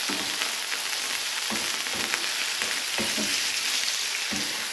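Diced chicken breast sizzling in hot olive oil in a frying pan, with a steady crackling hiss. A wooden spatula stirs and scrapes the pieces around the pan every second or so.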